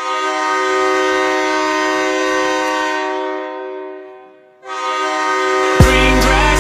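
The Houston Roughnecks' goal horn, a train-style air horn sounding a chord of several steady tones. The first long blast fades out after about four seconds, and the horn sounds again a moment later. About a second before the end, a hip-hop track with a heavy bass beat kicks in over it.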